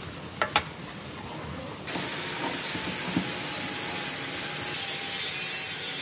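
A brush scrubbing a motor rotor in a metal tray, with two sharp clicks early on; about two seconds in it gives way abruptly to a steady, louder hiss of unclear source that runs on.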